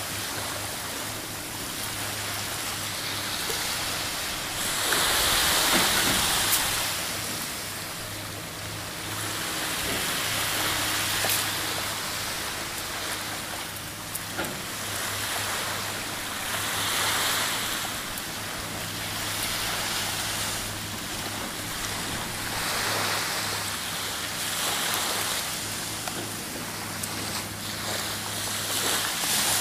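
Sea surf washing onto a sandy beach, the rush swelling every few seconds, over a steady low mechanical hum.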